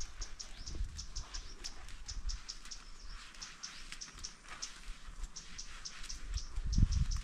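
A small creature chirping: short, high, slightly falling chirps, about four a second, keep repeating over a low rumble. A dull low thump comes near the end.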